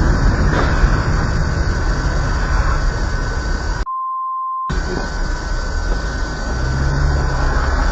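Steady road and engine noise from a moving car, as recorded by a dashcam, with a thin high tone running through it. About four seconds in, the sound is cut for under a second and replaced by a pure beep, a censor bleep.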